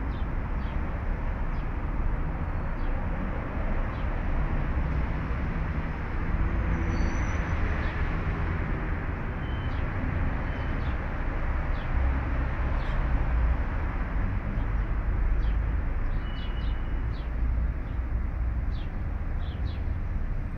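Outdoor ambience: a steady low rumble with a few short bird chirps scattered through it.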